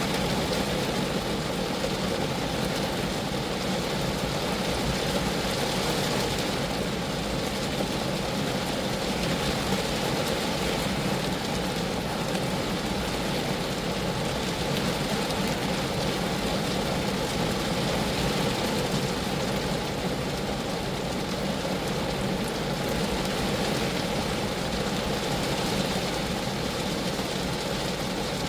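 Steady rain falling on a Geo Metro's roof and body, an even, unbroken patter with a low drumming undertone.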